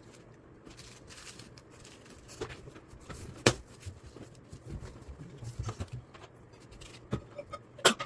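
Handling and rustling of a microwave oven's packaging during unboxing, with scattered sharp clicks: a sharp one about three and a half seconds in and another near the end.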